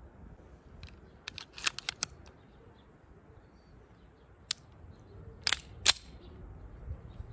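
Metallic clicks of a Tokarev 30 bore pistol being loaded: a quick cluster of clicks as the magazine is pushed home into the grip, then one click and two sharp clacks a little over five seconds in as the slide is pulled back and released to chamber a round.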